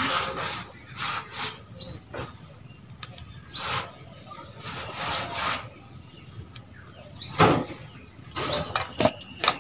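Bird calls repeating every one to two seconds, each a short harsh burst with a quick rising chirp on top, over the rustle of dry garlic skins being peeled by hand.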